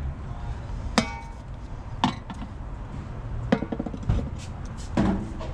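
Metal hand tools clinking and clanking, four or five sharp ringing strikes about a second apart.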